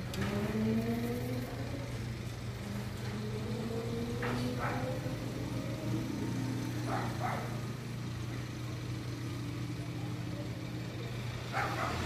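A motor vehicle's engine running, its pitch rising slowly, over a steady low hum. A few short, sharp sounds cut in about four and seven seconds in.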